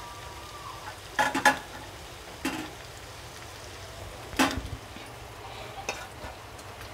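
Chicken frying in a steel kadai with a steady low sizzle, broken by several sharp clinks of a steel spoon against the pan. The clinks come as a quick pair a little after a second in, one more about a second later, the loudest at about four and a half seconds, and a faint one near the end.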